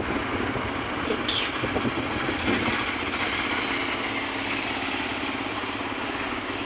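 Steady engine and road noise of a moving motor vehicle, even throughout.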